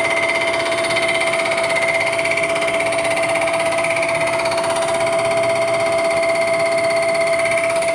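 Milling machine running steadily while its large face cutter decks the top of a cast-iron 1927 Chevrolet engine block, a constant mechanical tone over the scrape of the cut. The cutter is just starting to touch the back side of the deck.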